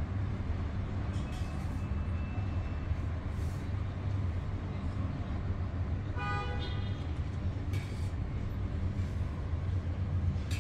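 Steady low rumble of vehicle noise, with a brief horn-like toot about six seconds in.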